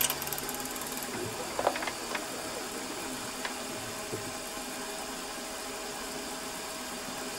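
Milling machine spindle motor running steadily, turning a wobble-pin edge finder while the part is brought up to it in X, with a few faint clicks about two seconds in.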